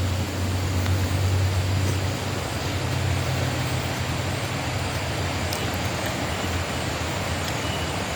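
A steady low hum under an even background hiss, like a motor running nearby; the hum shifts slightly about two and three seconds in.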